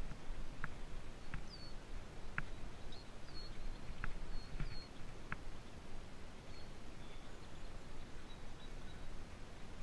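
Bicycle ride over rough grass heard from a helmet-mounted GoPro: a steady rumble and wind hiss from the bumps and airflow. Sharp ticks come about once a second in the first half and thin out later, with a few faint high bird chirps.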